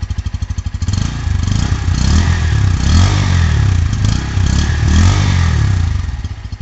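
Bajaj Pulsar N160 single-cylinder engine heard at the exhaust, idling with an even pulse, then revved up and down several times. The sound dies away near the end.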